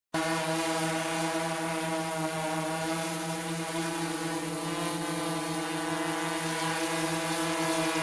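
Multirotor drone hovering: the steady buzzing hum of its propellers and motors, several pitches at once over a hiss, cutting in abruptly at the very start.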